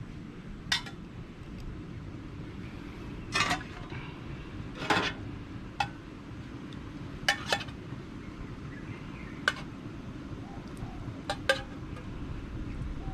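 Kitchen utensils and dishes clinking and tapping against a pot and bowls: about ten scattered clinks, a few ringing briefly, over a steady low background noise.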